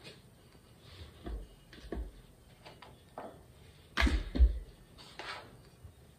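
Soft knocks and thuds as diced butter cubes are picked off a plastic cutting board and dropped by hand into a food processor bowl of flour, a few faint ones at first and the loudest about four seconds in.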